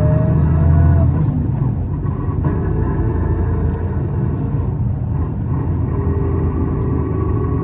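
Cabin sound of an Isuzu Erga city bus under way, a bus noted for an abnormal noise. A steady low engine and road rumble runs throughout. A whining tone rises in pitch and stops about a second in, and another whine comes in about six seconds in, sinking slightly.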